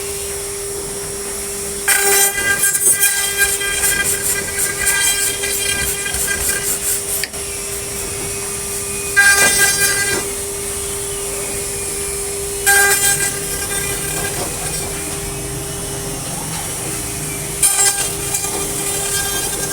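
CNC machine running: a steady whine throughout, with four louder passes of high hiss and ringing pitched tones as the tool cuts, the first lasting about five seconds.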